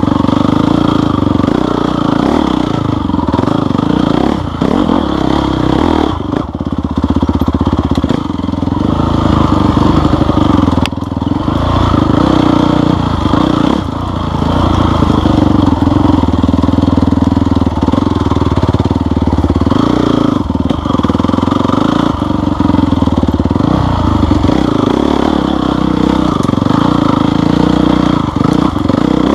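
Off-road vehicle engine running hard on a trail, its throttle rising and easing off every few seconds.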